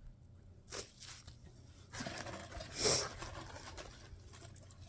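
Rustling and handling noises as items and packaging from a subscription box are moved about, with a short rustle a little under a second in and a longer, louder rustle from about two seconds that peaks near three seconds.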